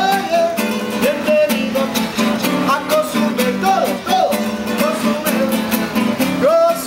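A man singing with sliding, swooping notes to his own strummed acoustic guitar, the chords strummed in a steady rhythm.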